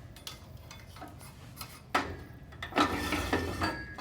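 Shop handling noise: quiet at first, then a sharp knock about halfway through and a stretch of clattering and rubbing as duct board is moved around the cutting machine.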